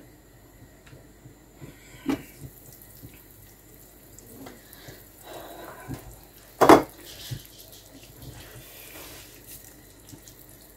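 Cookware being handled: a light knock about two seconds in and a loud clank of a glass pot lid a little before seven seconds in, with soft handling noise between.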